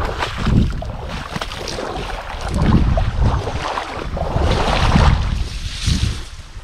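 Rushing river water mixed with wind buffeting the microphone, coming in irregular surges.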